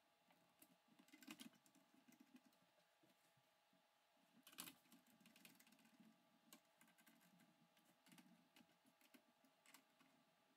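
Faint scattered clicks and ticks of a screwdriver driving screws through the radiator into a steel PC case's top panel, with slightly louder clicks about a second in and again a little past halfway.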